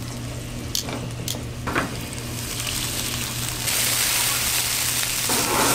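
Meatballs sizzling in oil in a frying pan, with a few clicks of metal tongs against the pan as they are turned; the sizzle swells loudly about two-thirds of the way in.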